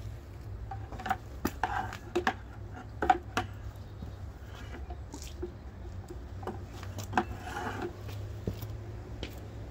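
Scattered clicks, taps and knocks as a garden hose and its fitting are handled on a homemade angle-grinder core drill, over a steady low hum. The grinder is not running.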